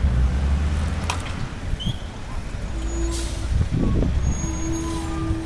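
Motor vehicle engine running close by in street noise, loudest in the first second and then easing, with two short steady whining tones in the second half.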